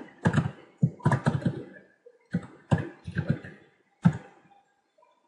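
Computer keyboard typing in irregular bursts of keystrokes, stopping about four seconds in.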